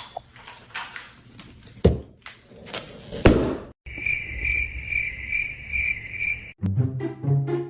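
A few sharp knocks and thumps, the loudest a little over three seconds in, then a high, steady chirping that pulses two or three times a second for about three seconds before music comes in.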